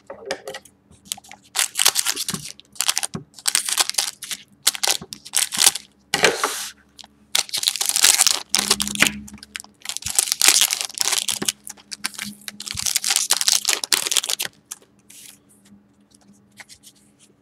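Foil trading-card packs (Panini Prizm) being torn open and crinkled, in repeated bursts of tearing and rustling foil for about fourteen seconds, then fainter handling near the end.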